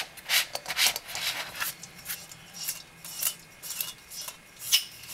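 Brunton Flex stove being screwed onto a gas fuel canister: a series of light metallic clicks and scrapes as the threads turn, with a sharper click near the end as the connection engages.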